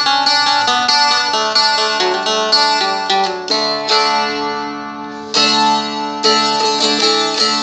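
Seagull Merlin, a small four-string fretted dulcimer, being strummed. A picked melody changes over open strings that ring steadily beneath it, and a new strum comes every second or two.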